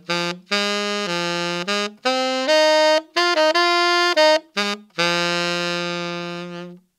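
Tenor saxophone playing a blues-scale lick in G minor, deliberately straight with no bends: a phrase of short, level-pitched notes that ends on a long held note, which tapers off near the end.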